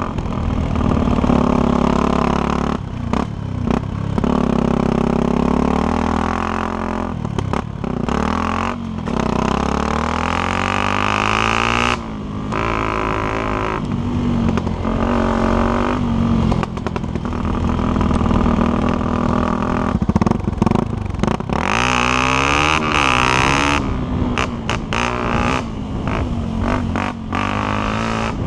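Yamaha WR125's single-cylinder four-stroke engine under constantly changing throttle while riding a trail, revving up and easing off again and again, with brief drops in the engine note every few seconds.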